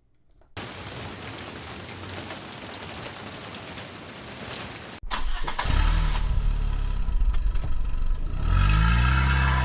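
A steady hiss for about four seconds that cuts off abruptly, then a motor or engine starting up and running with a low hum that rises in pitch near the end.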